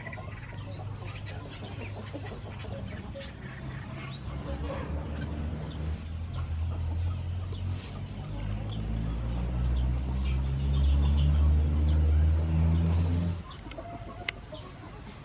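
Chickens clucking in the background. A low steady hum grows louder through most of the stretch and then cuts off suddenly near the end.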